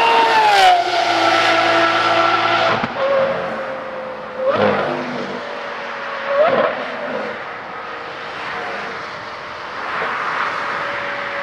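Lamborghini Aventador SVJ's V12 engine with a Gintani aftermarket exhaust passing at high speed, its note dropping quickly in pitch as it goes by. After an abrupt cut, a steady, more distant high-revving engine note follows, broken twice by short sharp bursts.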